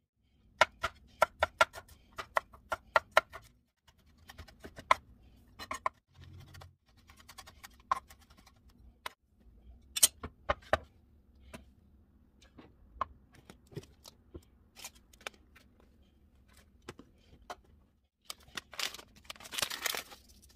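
Chef's knife chopping on a wooden cutting board: a quick run of sharp knocks at about four a second, then scattered single knocks. Near the end, a longer rustling noise.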